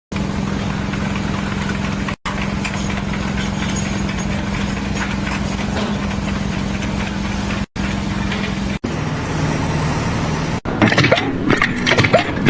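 An engine running steadily, with a constant low hum, broken by several abrupt cuts between clips. In the last two seconds a quick series of sharp knocks and clatter sounds over the engine.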